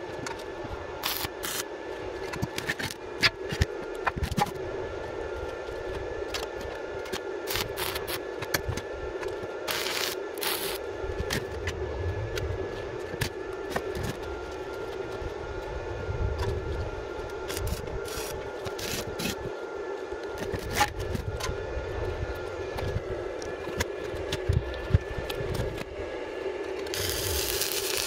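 Scattered clicks and metal knocks of steel square tubing being handled and positioned, over a steady hum. Near the end a stick-welding arc from a 2.5 mm rutile electrode strikes and runs as a steady crackling hiss.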